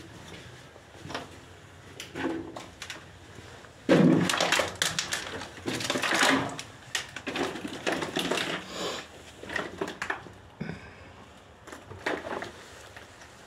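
Footsteps crunching and clattering over loose rubble and rubbish on a tunnel floor. A sudden loud stretch of dense crunching starts about four seconds in and lasts about three seconds, followed by scattered single steps and knocks.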